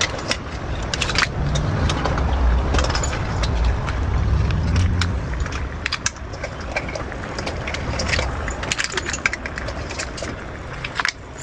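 Irregular clicks, knocks and clattering of shell-on seafood being tipped into and moved around a cooking pot, over a low rumble.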